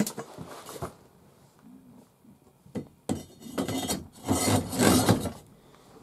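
Two sharp knocks in the first second, then, about halfway through, a couple of seconds of louder scraping and rubbing.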